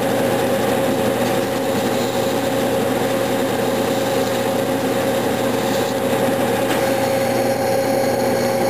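Clausing metal lathe running at a steady speed with an even whine and hum, spinning a generator armature while fine sandpaper is held against its copper commutator to polish it smooth.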